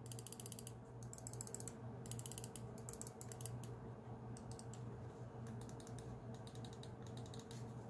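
Glorious Model O gaming mouse clicking: about nine quick runs of rapid, sharp clicks, each lasting around half a second, with short pauses between.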